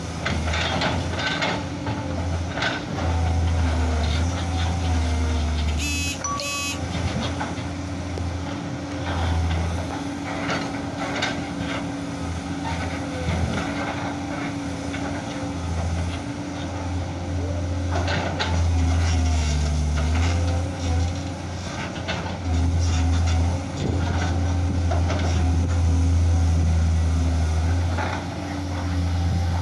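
Komatsu hydraulic excavator's diesel engine running under load, swelling and easing again and again as it digs and lifts limestone blocks, with scattered knocks of rock against the bucket. A brief high-pitched pulsing sound comes about six seconds in.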